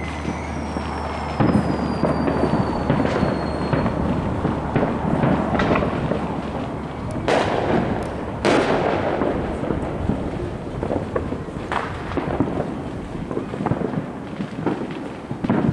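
Fireworks going off: a dense run of crackling pops and bangs, with two sharper bangs about a second apart near the middle. High whistles falling in pitch fade out over the first few seconds.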